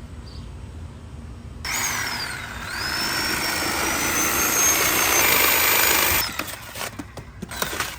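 A handheld electric power tool runs for about four and a half seconds. Its motor whine dips in pitch, then climbs and holds steady before cutting off. A few knocks follow near the end.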